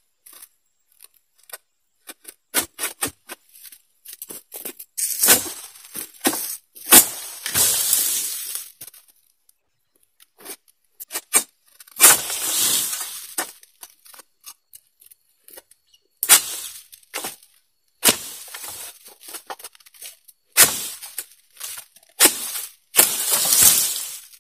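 An egrek, a long-poled harvesting sickle, pulled again and again against an oil palm's crown: irregular sharp clicks and cracks of the blade biting, with several longer rasping, tearing strokes as it saws through the fibrous stalk.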